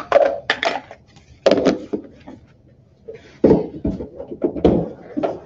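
Plastic measuring cups clattered together and set down on a stainless steel worktable. This is followed by more knocks and rustles of kitchen handling, the loudest, with dull thumps, in the second half.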